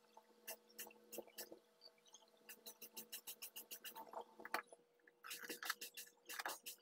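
Watercolor brush being rinsed in a cup of water and dabbed on the paint pans: faint quick clicks and taps, with a fast run of them in the middle as the brush is swirled against the cup. A faint steady hum lies underneath.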